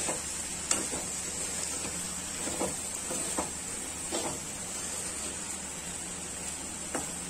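Steel ladle stirring chunks of potato and capsicum in a kadhai, with a few scattered clinks and scrapes of metal against the pan over a steady background hiss.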